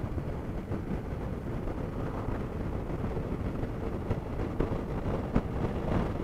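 A faired sport motorcycle cruising steadily at highway speed, its engine running under wind rushing over the microphone.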